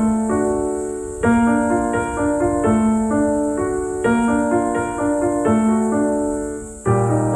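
Background piano music: a gentle repeating pattern of notes, with a new lower chord coming in near the end.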